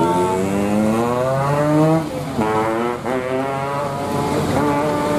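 Vehicle engines revving hard under load on a steep climb, the pitch rising over the first two seconds, dropping sharply twice around two and three seconds in, then climbing again.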